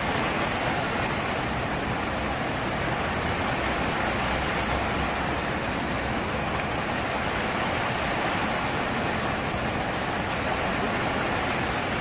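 Lincoln Center's Revson Fountain: many jets of water spouting and splashing back into the pool, a steady rushing hiss.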